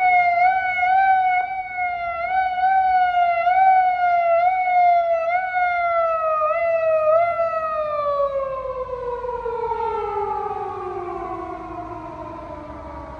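Japanese police patrol car siren, cycling in quick rising sweeps about one and a half times a second. From about seven seconds in the pitch slides steadily down and the siren fades.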